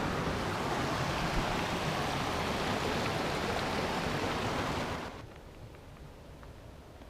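Steady rushing of flowing water from a creek or small cascade, cutting off abruptly about five seconds in and leaving a faint quiet background with a few light ticks.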